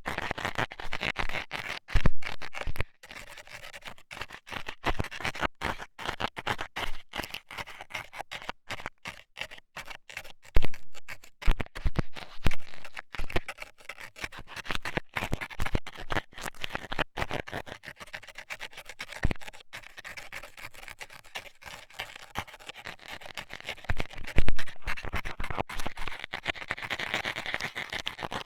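Metal dental scaler poking and scraping in an ear, close to the microphone: a dense, irregular run of scratching and clicking with a few louder knocks.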